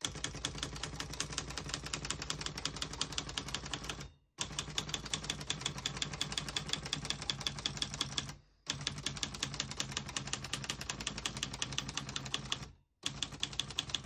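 Tower Chieftain manual portable typewriter (an Olivetti-built machine) being typed on: a fast, even string of key and typebar strikes. The strikes come in long runs broken by three short pauses, about 4, 8.5 and 13 seconds in.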